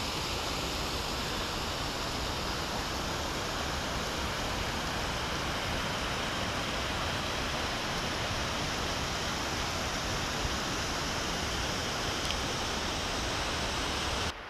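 Steady rush of mountain water, an even hiss without rhythm or pitch, cutting off abruptly near the end.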